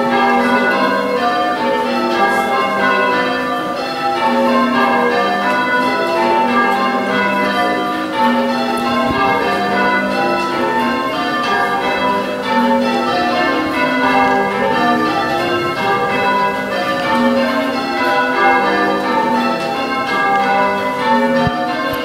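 Change ringing on a ring of six church bells: a steady, unbroken stream of bell strikes, each ringing on as the next one sounds.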